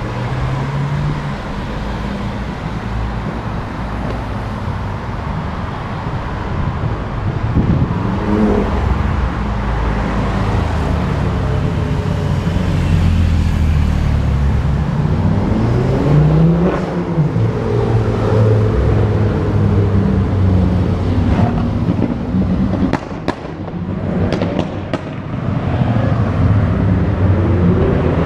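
Sports cars accelerating and passing, their engines revving up and down with a pitch sweep as one goes by, and a few sharp cracks about three quarters of the way through.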